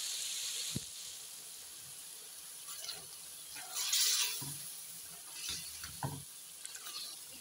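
Thick curry gravy sizzling in a karahi while a metal spoon stirs it through. There are wet scraping sounds, loudest about four seconds in, and a few light knocks of the spoon against the pan.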